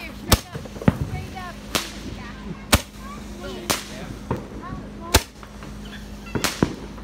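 Handheld Roman candle firing its shots: a sharp pop about once a second, with two in quick succession near the end.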